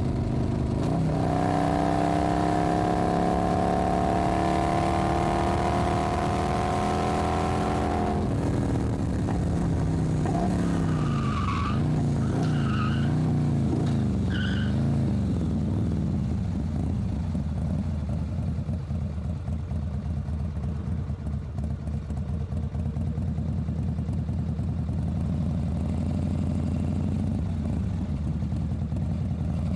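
Motorcycle engine at low revs, its pitch climbing steadily for several seconds under throttle, then dropping suddenly. The revs rise and fall for a few seconds, with a few short higher squeaks, then settle into a steady low rumble.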